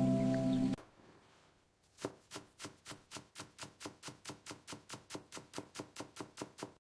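A kitchen knife chopping vegetables on a cutting board in quick, even strokes, about four or five a second, starting about two seconds in. Calm ambient music cuts off suddenly just before.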